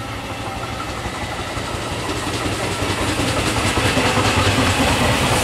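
SEPTA electric multiple-unit commuter train approaching and coming past, growing steadily louder: a steady low electric hum with wheels clattering on the rails as it nears.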